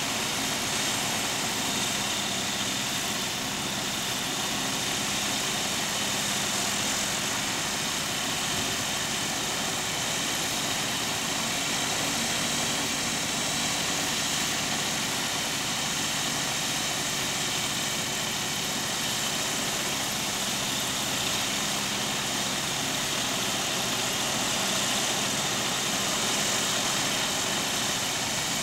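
Rotax 912 four-cylinder aircraft engines idling steadily, their propellers turning.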